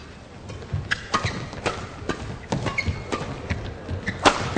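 Badminton rally: a string of sharp racket strikes on the shuttlecock with short shoe squeaks on the court, ending in a hard smash about four seconds in, the loudest hit.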